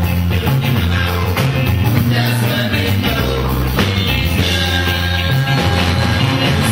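Live band music: electric guitars, bass guitar and drum kit playing at full volume with a strong bass line, with a man singing over it.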